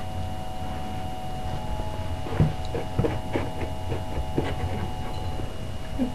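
A steady electrical hum with a string of irregular light taps and clicks through the middle, the loudest about two and a half seconds in.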